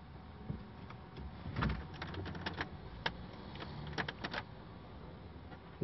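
Quiet steady background hum with a handful of short clicks and knocks scattered through it, including a quick run of several about four seconds in.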